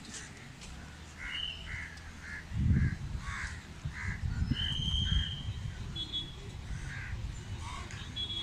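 Crows cawing in a quick run of repeated calls, with a loud low rumble on the microphone from about two and a half to five seconds in.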